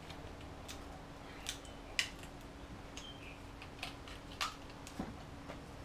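Scattered clicks and crackles of hand work on a freshly cured fibreglass moulding and its mould on a workbench, the sharpest click about two seconds in, over a faint steady hum.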